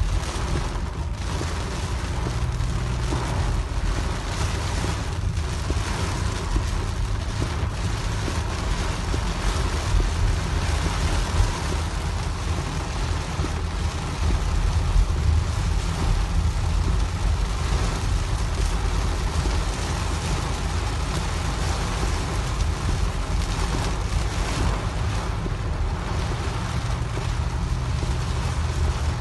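Downburst rain and wind on a moving car, heard from inside the cabin: a steady, dense hiss of rain on the roof and windscreen over a deep low rumble.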